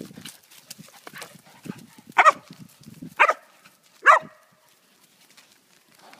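Blue heeler cattle dog barking three times, about a second apart, over low grunts from a pygmy pig rooting in the grass.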